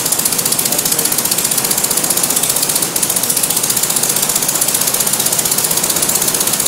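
Engine of a Mignet HM.14 Flying Flea light aircraft running steadily on the ground, turning its propeller, with a fast, even beat.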